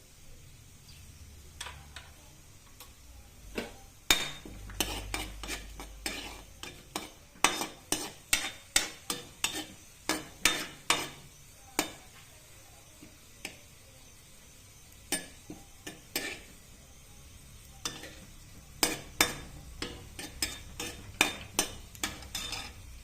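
A spoon or spatula stirring food in a frying pan, clacking and scraping against the pan in quick runs of sharp knocks, over light sizzling of oil. The knocks are densest in the first half and come again near the end.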